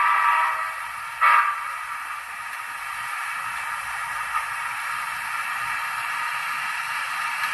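Tsunami 2 sound decoder in a Norfolk and Western 4-8-0 M-class steam locomotive model, playing steam sounds through its small onboard speaker: a held chord-like tone that fades away within the first second, a short loud burst about a second in, then a steady hiss.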